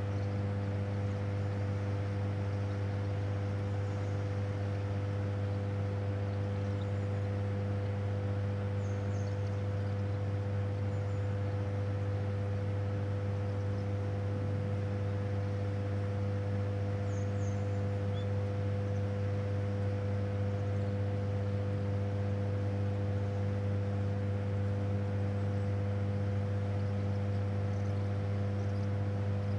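Yagisawa hydroelectric power station running: a steady, unchanging low electrical hum with a stack of higher overtones above it, over a faint even hiss.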